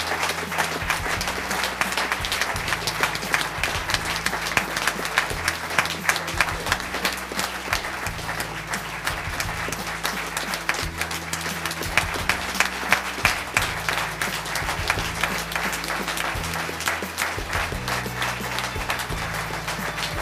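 Audience applauding steadily, with background music underneath whose low notes change every second or two.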